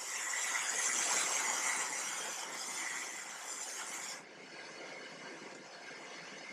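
Food sizzling on the Ninja Foodi Grill's preheated grill plate as a steady hiss that swells about a second in, then eases off and drops away sharply about four seconds in.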